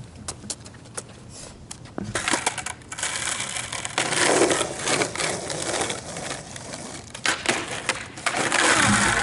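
Skateboard put down on street asphalt and ridden, its wheels rolling steadily over the rough surface, with several sharp clacks of the board against the pavement in quick succession near the end.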